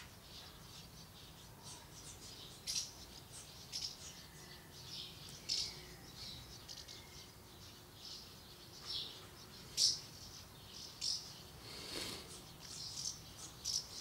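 Small birds chirping faintly, short high chirps scattered irregularly every second or so.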